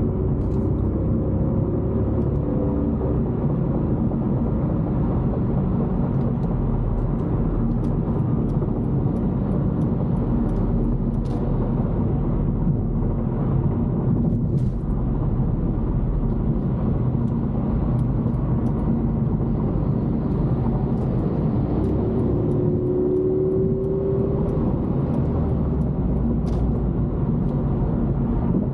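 Steady engine and road rumble heard from inside a car's cabin while driving.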